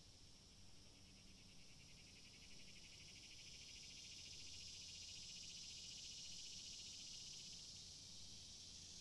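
Faint, steady high-pitched insect trilling that grows a little louder about halfway through, over a low hum.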